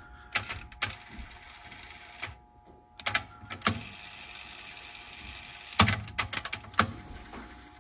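Sony TC-WR950 cassette deck's tape transport running with a faint steady whine from its motor and gears, broken by sharp mechanical clicks and clunks as the mechanism switches modes, with a quick run of clicks about six seconds in. The gears are a little noisy.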